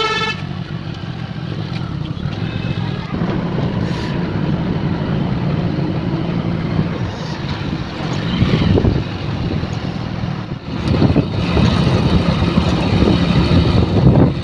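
Motorcycle riding along a highway: steady engine hum under road and wind noise, growing louder about two-thirds of the way through. A vehicle horn toots briefly right at the start.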